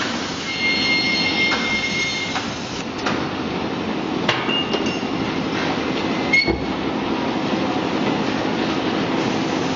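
Continuous snack-food fryer machine running with a steady mechanical hum. A high metallic squeal sounds in the first couple of seconds, and a few sharp clanks follow, the loudest about six and a half seconds in.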